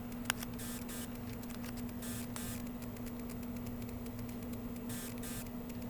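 Test clip leads being handled and moved: a sharp click about a third of a second in, then faint crackling and rustling, with a second patch of it near the end. A steady low hum runs underneath.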